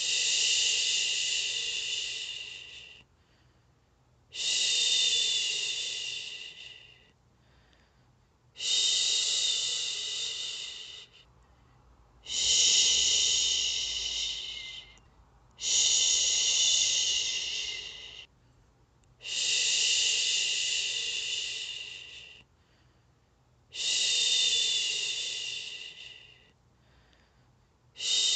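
A woman shushing, 'shhhh', to soothe a baby to sleep. The long hissing shushes repeat about every four seconds, each starting sharply and fading off, with short pauses for breath between.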